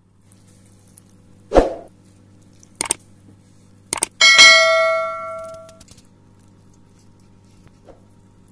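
Subscribe-button animation sound effects: a thump, then mouse clicks, then a bright bell ding about four seconds in that rings out for over a second. A steady low hum runs underneath.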